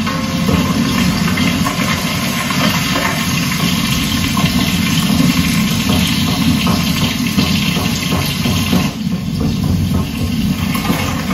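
Fish deep-frying in a pan of hot oil: a steady sizzle and crackle of bubbling oil.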